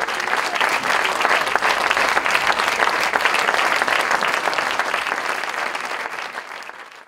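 Audience applauding: a dense, steady clapping from a full hall that thins and fades away over the last two seconds.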